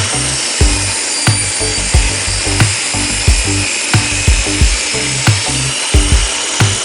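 Table saw ripping live-edge lumber: a steady, loud noise of the blade cutting the wood. Background music with a steady beat, about one and a half thumps a second, plays along with it.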